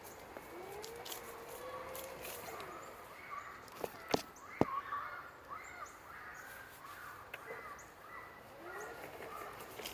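Footsteps crunching through dry fallen leaves, with birds calling over and over in the background. Two sharp clicks about four seconds in.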